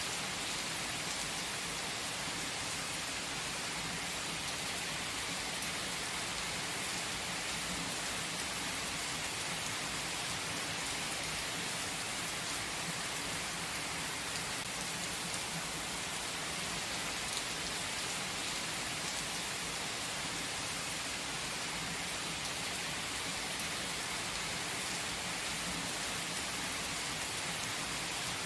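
Steady rain falling, an even hiss with the odd louder drop.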